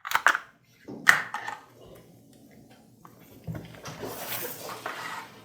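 Handling of tattoo-kit packaging: a few short clicks and rustles, then a longer faint rustling scrape over the last two seconds.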